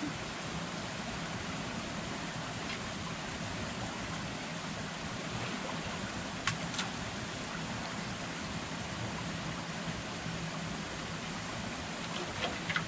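Steady rushing of flowing creek water, with two brief clicks about six and a half seconds in.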